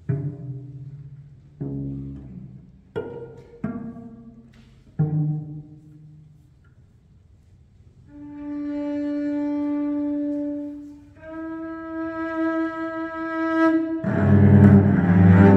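Solo cello: a few plucked (pizzicato) notes, each ringing and dying away, then two long held bowed notes, the second a little higher. Near the end comes a loud, rough bowed passage sounding several strings at once.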